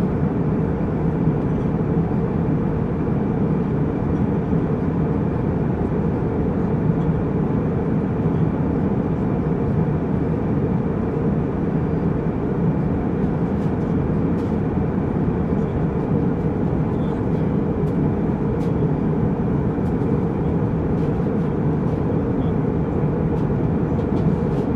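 Jet airliner cabin noise in flight: a steady, low rush of engine and airflow, with faint thin tones above it.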